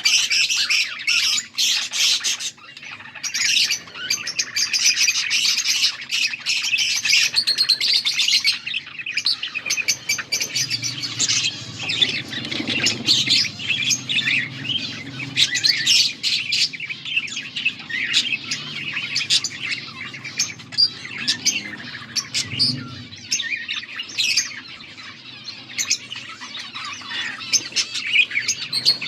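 Budgerigars chirping and warbling continuously in fast, busy chatter, with a low background hum through the middle stretch.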